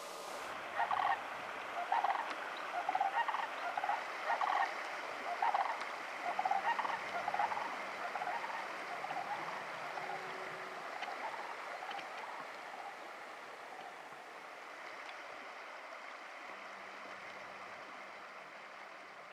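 Dusky grouse clucking: about a dozen short calls over the first eight seconds, growing fainter, over the steady rush of a shallow creek.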